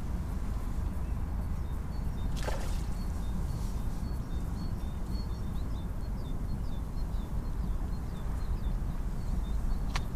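Steady low rumble of wind on the microphone, with faint short high chirps repeating a few times a second. There is a brief swish about two and a half seconds in and a sharp click near the end.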